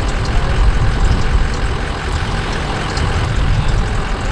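Wind buffeting the microphone: a steady, uneven low rumble with no clear engine pitch.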